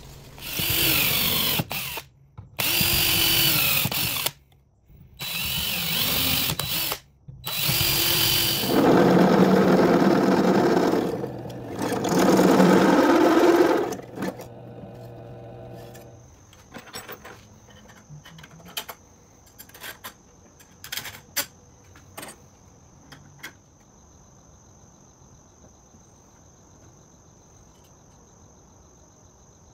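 Drill press with a step bit cutting holes in a thin steel plate, in several runs of a few seconds each that start and stop abruptly. After about 14 seconds the drilling stops, leaving scattered light metallic clicks as hardware is fitted by hand over a steady high insect drone.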